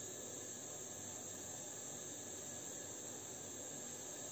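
Gas stove burner hissing steadily, with a high whine over the hiss.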